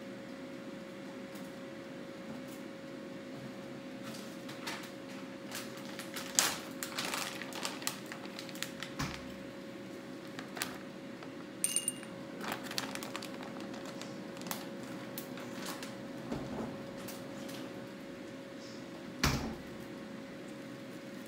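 Scattered light clicks and taps of dishes and utensils on a dining table, with a short ringing clink about halfway and a louder knock near the end, over a faint steady hum.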